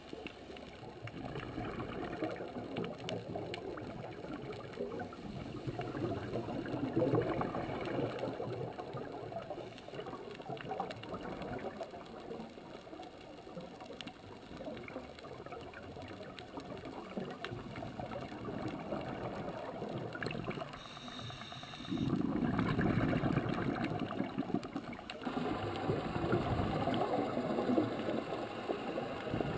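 Muffled underwater rushing and gurgling of scuba regulator exhaust bubbles, heard through a camera housing. It comes in surges every few seconds and is loudest in the last third.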